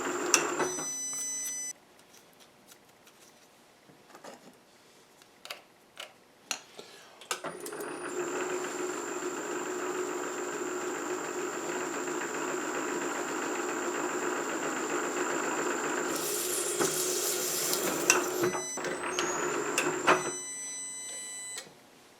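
Milling machine spindle motor running with a steady hum. It shuts off about two seconds in, a few light clicks follow, and it starts up again about seven seconds in and runs until shortly before the end, while a countersink lightly deburrs drilled holes.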